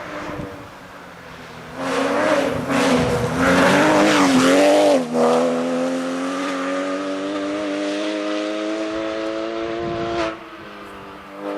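Porsche rally car engine revving hard, its pitch rising and falling over a hiss of tyre noise, then holding a steady note that climbs slowly as the car accelerates, before cutting away about ten seconds in.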